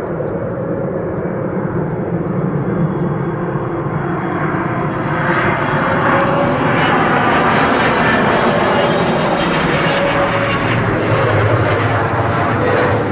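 Boeing 777's twin GE90 turbofan engines on final approach with gear down: a steady jet rumble with a faint whine, growing louder as the airliner closes in.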